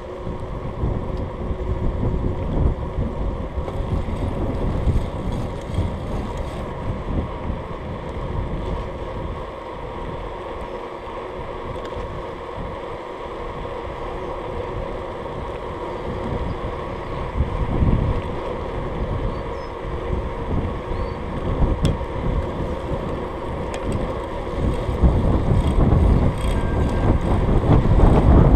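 Wind buffeting the microphone of a camera riding on a moving bicycle, with the tyres rumbling on the road surface. The buffeting grows louder near the end.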